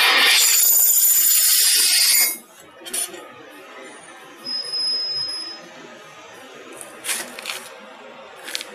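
Gantry CNC machine's drill head drilling into steel plate, a loud cutting noise that stops suddenly about two seconds in as the drill finishes and retracts. After it, a quieter background with a few light clicks and a short high tone.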